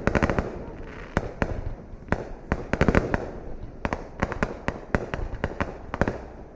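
Fireworks going off: a rapid, irregular string of sharp bangs and crackles, some in quick clusters, over a low rumble.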